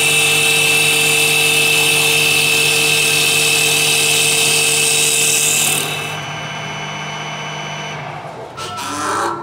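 CNC wood lathe turning a spinning wooden blank: a loud, steady cutting hiss over the machine's whine. About six seconds in the hiss drops away, leaving a quieter steady machine hum that shifts briefly near the end.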